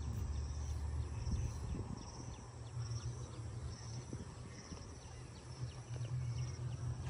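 An insect chirping outdoors in short buzzy pulses, about one every second, over a steady low rumble.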